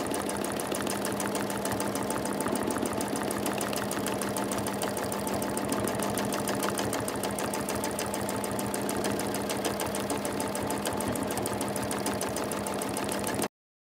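Domestic sewing machine free-motion quilting: a fast, steady clatter of needle strokes over the motor's hum. The sound cuts off suddenly near the end.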